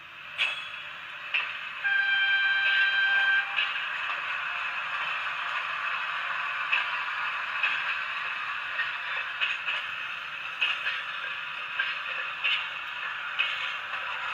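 Recorded train sound effect played through a small speaker: a horn blast of about a second and a half, over and followed by the steady rush of a running train with irregular clacks.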